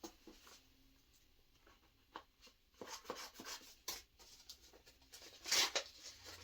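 Packaging being handled and opened: a string of short, scratchy rustles and crinkles, sparse at first and busier later, with the loudest flurry about five and a half seconds in.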